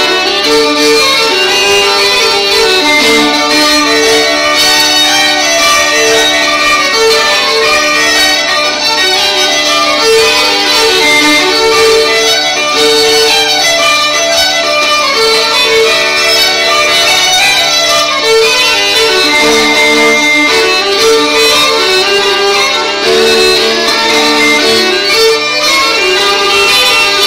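Fiddle and uilleann pipes playing an Irish traditional dance tune together, a steady stream of quick notes over a held drone.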